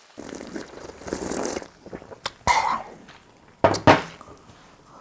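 Cola poured over ice in a glass, fizzing, for about the first second and a half. Then short, sharp throat sounds like coughs: one about two and a half seconds in and two close together near four seconds.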